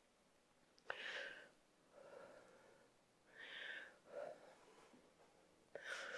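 Faint breathing of a person exercising: a series of short, breathy exhales, about one every second or so, with a small click just before the first.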